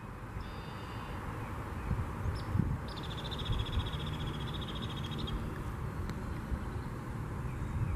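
Outdoor pond-edge ambience with a steady hiss and low rumble, over which a small animal gives a high, rapid trill: briefly near the start, then for about two seconds from around three seconds in.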